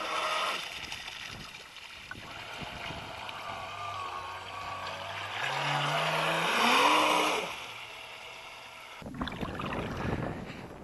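Electric thruster motor of a radio-controlled boat running on the water, its whine stepping and gliding up and down in pitch with the throttle, loudest about two-thirds of the way through. A burst of rushing noise follows near the end.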